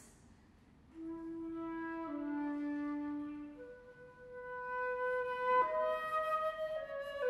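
Concert flute playing a slow line of held notes, entering about a second in after a short pause. The first notes are low; from midway it moves higher and grows louder.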